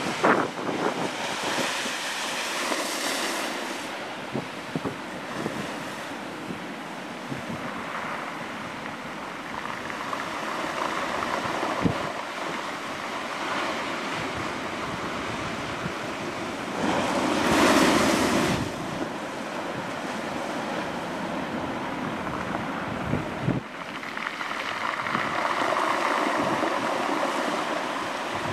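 Storm surf breaking and washing up the shore, with wind buffeting the microphone. The rush of water and wind swells and ebbs in waves, loudest about two-thirds of the way through.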